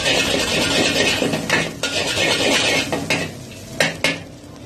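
Long metal spatula scraping and clanking against a large wok as egg and minced carrot are stir-fried over a sizzling hiss. The scraping and sizzle thin out about three seconds in, followed by two sharp clanks of the spatula on the wok near the end.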